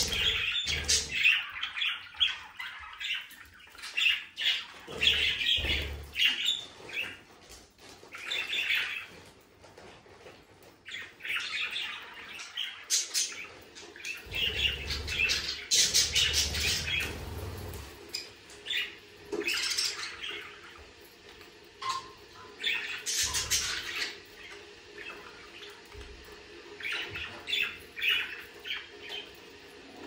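Several budgerigars chattering and warbling, with quick chirps and harsh squawks coming in irregular bursts with short pauses.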